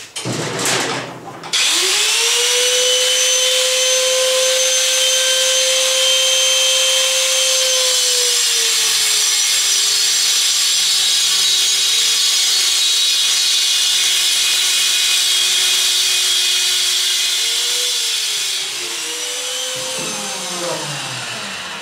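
Angle grinder cutting into the steel of a gas cylinder. After a brief clatter, the motor starts with a rising whine, then its pitch drops and holds lower as the disc bites into the steel, over a hiss of grinding. Near the end it is taken off the work and winds down.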